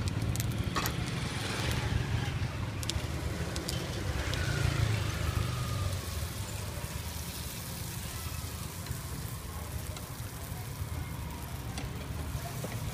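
Steady low engine rumble of street traffic, a little louder in the first half. A few sharp metal clinks in the first four seconds as a ladle knocks against an aluminium pot of waffle batter.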